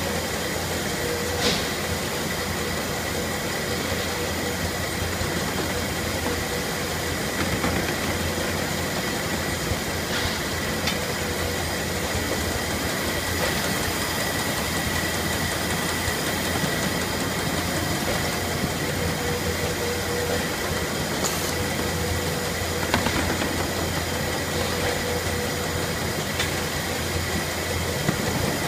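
Steady running noise of belt and roller conveyors in a carton-handling line, a constant mechanical hum with a faint high whine, broken by a few light clicks and knocks.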